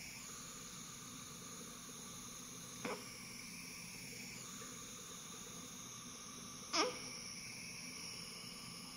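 Newborn baby giving two brief fussy whimpers, about three and seven seconds in, over a steady faint hiss.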